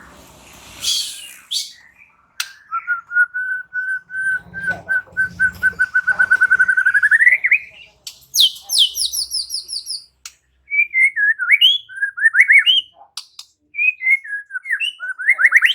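White-rumped shama (murai batu) singing: a short harsh note about a second in, then a long run of repeated whistled notes that speeds up and rises in pitch at the end, a quick string of very high falling notes, and then varied whistled phrases.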